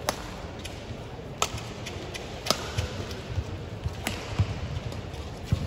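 Badminton rally: rackets striking the shuttlecock in four sharp cracks about a second apart, with players' shoes thudding on the court floor.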